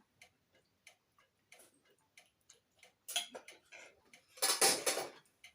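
Close-up eating sounds: scattered sharp mouth and chewing clicks, with two louder crunching bursts about three seconds and four and a half seconds in.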